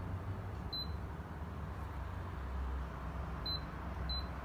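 Schlage Z-Wave smart lock keypad beeping as the programming code is keyed in: three short high beeps, the first about a second in and the last two about half a second apart, over a steady low hum.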